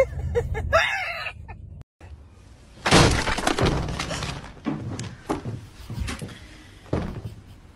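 A loud crash like glass breaking and shattering about three seconds in, lasting a little over a second, followed by a few sharp knocks or clatters.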